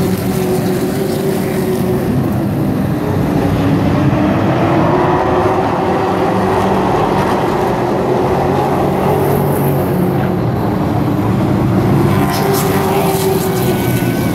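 A pack of race trucks running at speed on a short oval track, their engines rising and falling in pitch as they sweep past. The field comes by close again near the end.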